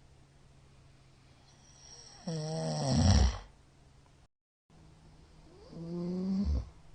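A middle-aged man snoring loudly in his sleep: two snores about three seconds apart. The first is louder than the second.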